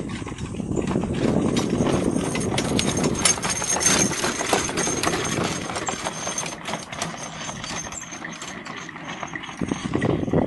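Horse trotting in harness on grass, its hoofbeats mixed with the rattle and creak of the four-wheeled driving carriage it pulls and the jingle of the harness.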